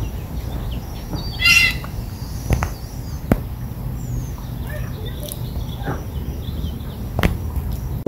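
A bird in the trees gives one short, harsh call about one and a half seconds in, with a few fainter chirps after it. Under the calls runs a steady low rumble, and a few sharp clicks stand out.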